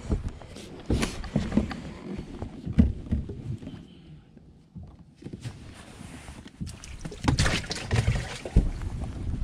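Irregular knocks and thumps on a small fishing boat, with a quieter stretch in the middle and a cluster of louder knocks near the end.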